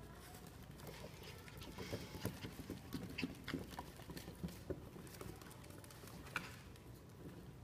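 Maltipoo puppies' and a dog's paws and claws pattering and clicking on a hardwood floor as they scuffle and play: a faint, irregular run of light taps, busiest in the middle few seconds.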